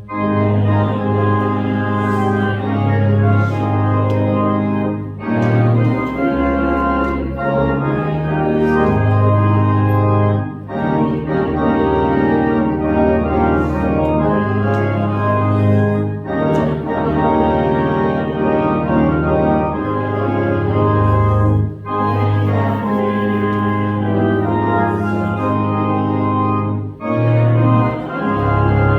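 Church organ playing a hymn tune in held chords over a low bass line, with a brief break about every five and a half seconds between lines.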